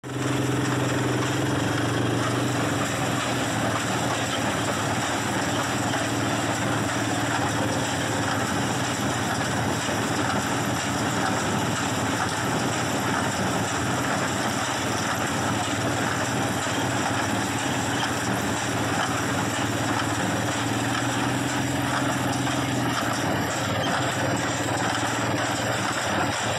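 1959 Farmall 240 tractor running steadily while it pulls and drives a New Holland small square baler baling hay.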